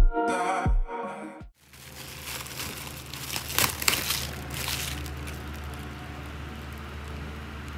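Electronic background music with deep, falling drum hits stops about a second and a half in. Then comes a steady low hum, with crackling and rustling handling noise in the middle.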